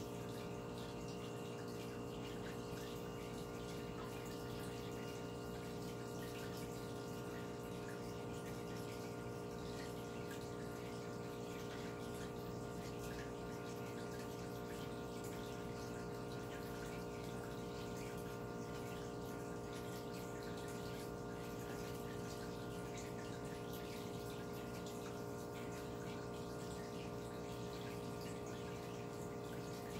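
Reef aquarium's pumps humming steadily, with the constant hiss of moving water.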